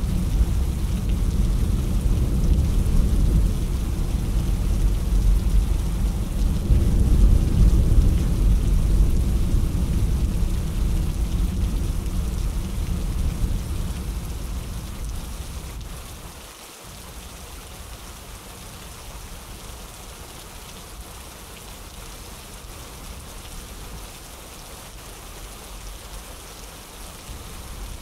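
Steady rain falling, with a long low rumble of thunder that swells to a peak about eight seconds in and dies away by about sixteen seconds. After a brief dropout, only the even hiss of the rain remains.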